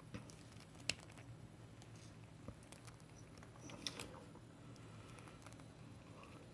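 Faint clicks of steel side-cutter jaws catching and slipping on a small metal pin in a plastic encoder housing, a sharper click about a second in and another about four seconds in, over quiet room noise.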